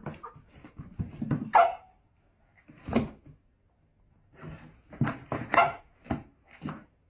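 A dog barking in short, uneven barks, with several quick ones close together in the last two seconds.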